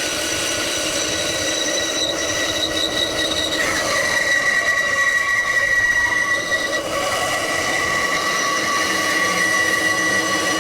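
Milwaukee M18 cordless bandsaw cutting through 90 × 90 × 4 mm steel section, the blade in the metal giving a continuous high-pitched squealing whine made of several steady tones, with a brief shift in pitch about four seconds in.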